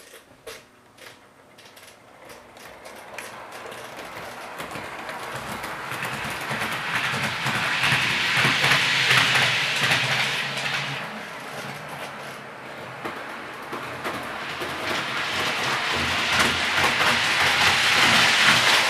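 Hornby OO-gauge model of an LNER Azuma Class 800 running around a layout, its wheels and motor rattling along the track. It grows louder as it comes near, is loudest about halfway through, fades a little, then grows louder again near the end as it comes round once more.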